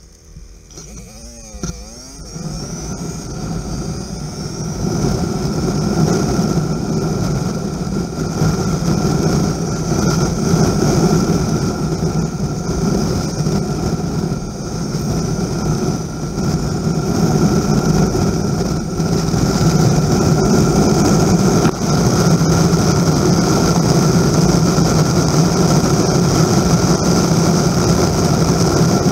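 Yamaha Drag Star V-twin motorcycle engine pulling away from low speed. Its pitch swings up and down about a second in, then it builds over the next few seconds and settles into a steady cruise, with wind and road noise throughout.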